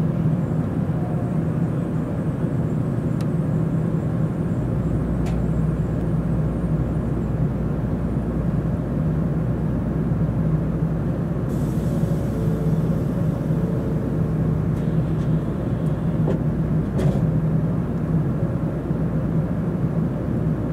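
Steady low hum inside an N700 series Shinkansen car as the train draws to a halt at the platform, with a deeper rumble setting in after a few seconds. There are a few faint clicks and a brief hiss about twelve seconds in.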